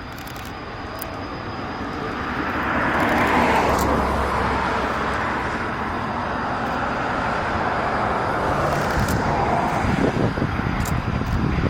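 Aircraft engine noise from a plane flying over an airfield, swelling over the first few seconds to its loudest about three to four seconds in, then holding at a steady rush.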